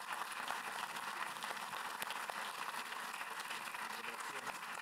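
An audience applauding: many hands clapping steadily together.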